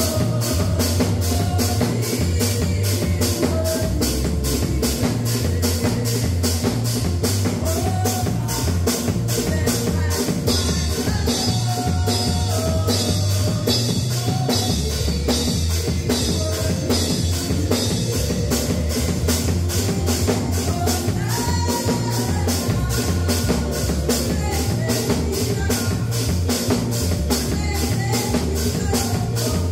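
Live gospel praise music: an acoustic drum kit keeps a steady fast beat over a bass line, with a woman singing a melody into a microphone.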